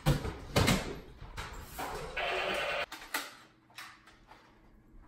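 Heavy thuds of a person running and landing a jump on a tiled floor. About two seconds in there is a short, steady rasping noise lasting under a second.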